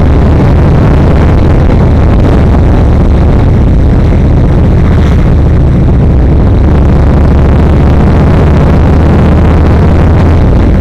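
Yamaha XVS1300's V-twin engine running at a steady pitch while riding, without revving up or down.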